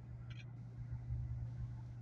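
A steady low hum with an uneven rumble beneath it, and a brief high-pitched sound just after the start.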